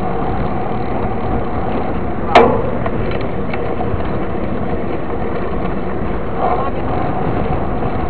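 Wind and road rumble on a camera riding on a moving mountain bike, with a single sharp clack about two and a half seconds in.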